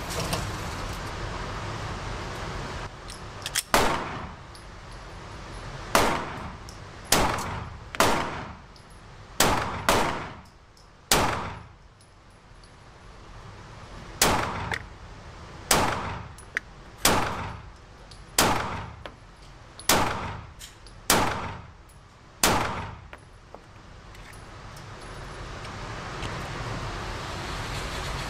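Glock 43X 9mm pistol firing a string of about fourteen shots, mostly a second or so apart with a longer pause midway. Each shot has a short echoing tail in the indoor range.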